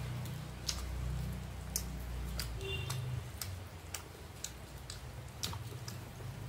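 Eating by hand: fingers mixing and mashing rice and dal on a metal plate, with irregular sharp clicks and smacks over a low steady hum.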